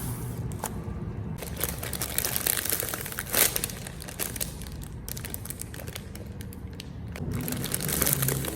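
Tape-covered paper squishy crinkling and crackling as it is squeezed by hand, with one louder crunch about three seconds in.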